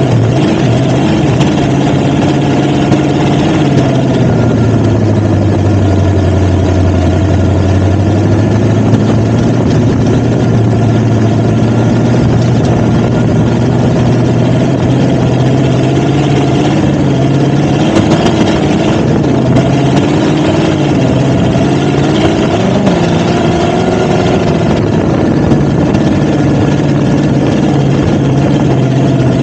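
Off-road vehicle's engine running loudly under changing throttle, its pitch dropping a few seconds in, then climbing and wavering as it drives on.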